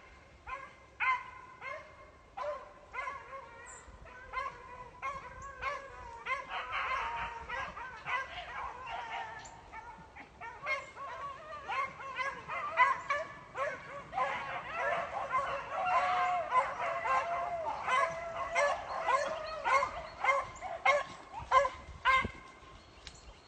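Pack of beagles baying while running a rabbit's scent trail, many short barks and a few drawn-out howls overlapping. The cry grows fuller about six seconds in and louder again from about eleven seconds, then falls off near the end.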